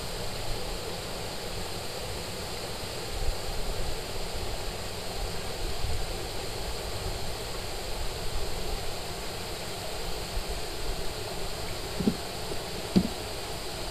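Steady rushing outdoor noise of wind and water around a small wooden canoe, with two short knocks on the hull near the end as the angler handles his rig.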